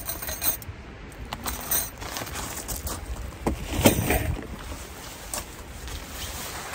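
Metal poles of a folding fabric pet fence clinking and rattling as it is pulled from its carry bag and set down on gravel, with fabric rustling as it is unrolled. A louder clatter comes about four seconds in.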